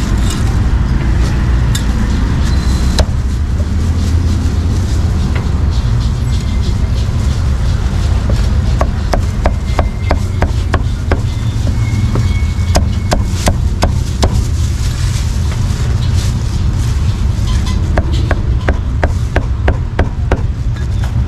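Heavy meat cleaver chopping roast pork belly and braised offal on a round wooden chopping block. The cleaver hits in quick runs of sharp knocks, thickest in the middle and near the end.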